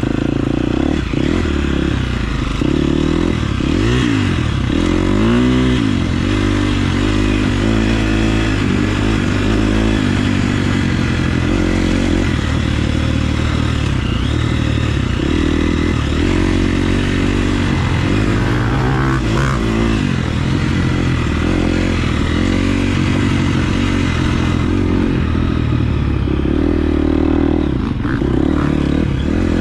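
KTM 350 SX-F motocross bike's single-cylinder four-stroke engine being ridden on a dirt track, its revs repeatedly rising and falling as the rider throttles on and off.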